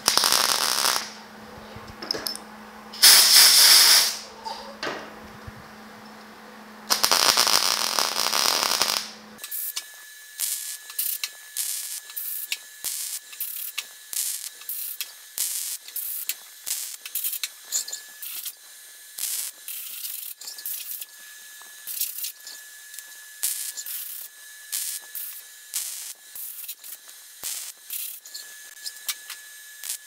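MIG welder arc crackling on thin sheet steel as short stitch welds are laid along a door panel seam. There are three longer bursts in the first nine seconds, then many brief crackling bursts in quick succession, the welding skipped around so the thin panel stays cool and doesn't warp.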